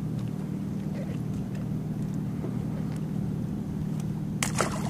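Motorboat engine droning steadily on the water, a low even hum. Near the end, a sudden burst of crackling, rushing noise.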